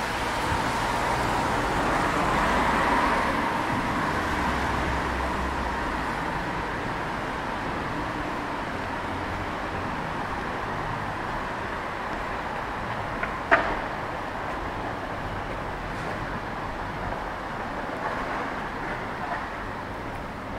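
City street traffic: a steady wash of passing vehicles, swelling as one goes by about two to four seconds in, with a single sharp click or knock about halfway through.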